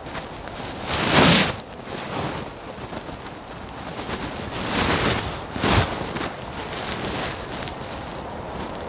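Wind gusting over the microphone, in rushes of about a second; the strongest comes about a second in, with more around five to six seconds in.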